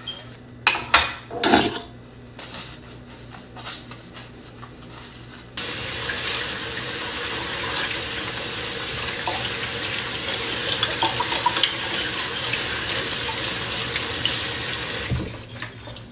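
Dishes being washed by hand at a kitchen sink: a few knocks of dishes and utensils, then about five seconds in the tap comes on and runs steadily while dishes are rinsed under it. The running water stops suddenly about a second before the end.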